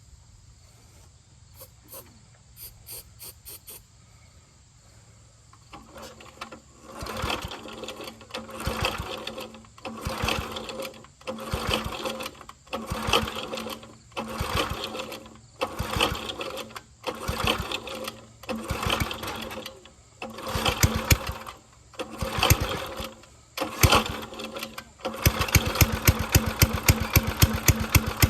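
Small gasoline engine on a log splitter being pull-started with a recoil rope about a dozen times in a row, turning over and sputtering with each pull and popping on the last few. About 25 seconds in it catches and runs with a fast, even beat. This is the first start after a new keyway and fresh oil.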